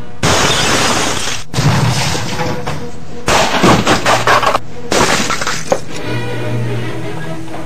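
Glass shattering and crashing in several loud bursts, broken by sudden cuts: an old CRT television being smashed. Background music with a low sustained note comes back near the end.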